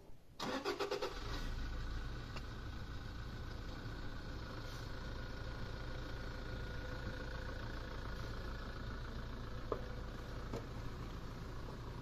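A vehicle engine cranks briefly and catches about half a second in, then idles steadily with a low hum.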